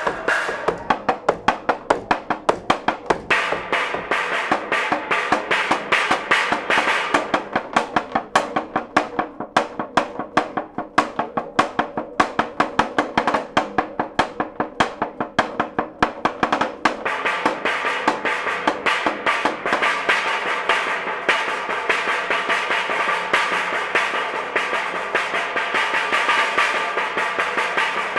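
Stick and felt-headed mallets striking curved thin panels of wood and white sheet material, in rapid even strokes several times a second. After about sixteen seconds the strokes merge into a dense roll, and the panels ring with a sustained tone.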